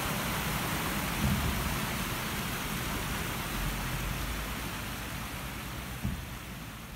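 Water cascading down the tiers of a stepped stone fountain: a steady rushing hiss that slowly grows quieter toward the end.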